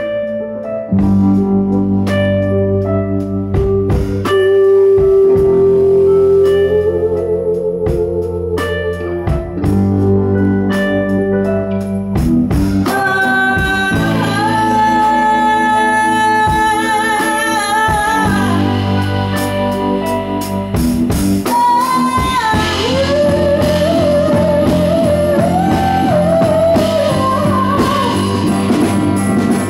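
Live band with electric guitar playing, and a woman singing long held notes at the microphone, which come in strongly from about halfway.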